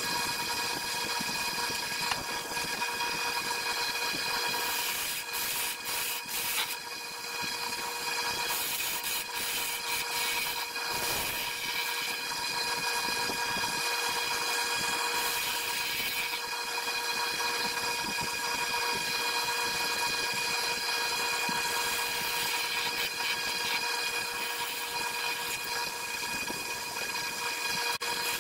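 Wood lathe running with a steady motor whine while tool work on the spinning black walnut makes a rasping noise that comes and goes, with rougher bursts several seconds in.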